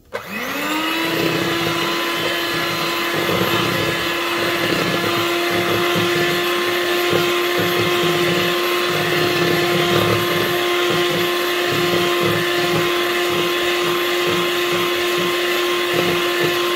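Handheld electric mixer spinning up to speed, then running with a steady high whine as its beaters churn thick waffle batter in a plastic bowl.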